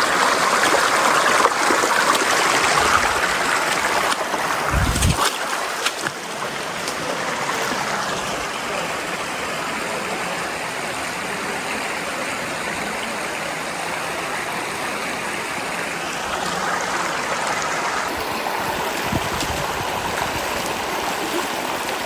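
Steady rush of flowing water from a stream or waterfall, louder for the first few seconds and then a little softer, with a brief low thump about five seconds in.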